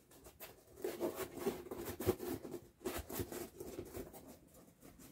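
Foam helmet pieces being handled, rubbing and creaking against each other, with scattered light taps and scratches.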